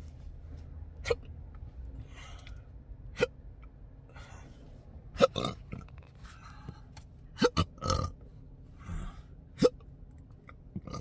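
A man's intractable hiccups: about seven sharp hiccups at irregular intervals, the strongest about five seconds in and near the end, with breaths between. He calls them aggressive choking spasms.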